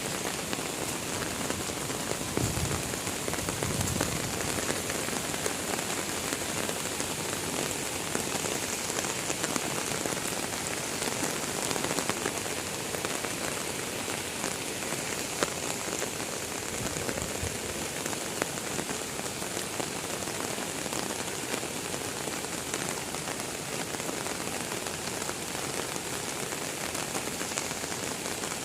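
Heavy rain falling steadily, a dense even hiss scattered with many individual drop hits.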